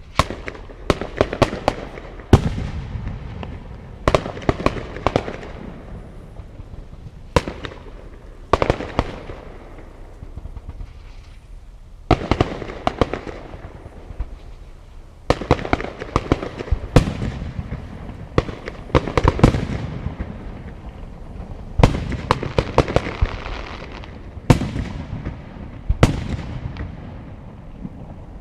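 Fireworks display: a steady series of sharp bangs and shell bursts, several close together at times, each followed by crackling and a rolling echo.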